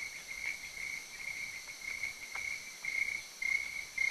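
Crickets chirping in a steady high trill, an ambient night sound in an animated clip's soundtrack.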